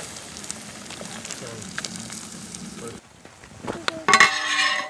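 Eggs and bacon sizzling in a frying pan over a small wood-fired folding stove. About four seconds in comes a loud metallic scraping clatter with a ringing tone, as the metal lid goes onto the pan.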